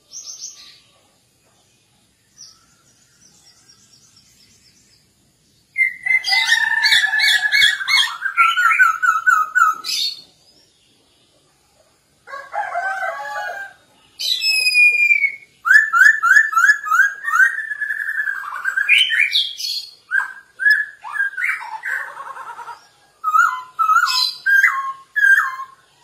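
Caged poksay Hongkong (masked laughingthrush) singing loud phrases of rapid, repeated whistled notes in several long bursts with short pauses between them, after a faint twitter near the start.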